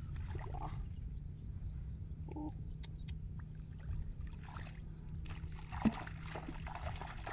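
Bare feet wading and splashing through shallow muddy water in a flooded rice paddy, over a steady low rumble, with a brief pitched call about two and a half seconds in and a sharp knock near six seconds.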